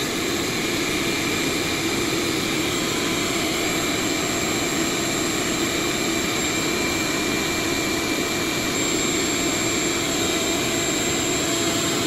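Steady whoosh of a heat gun and an electric space heater blowing, together with a power inverter's cooling fans, while a 12 V battery feeds them about 240 amps. A few steady tones sit in the noise.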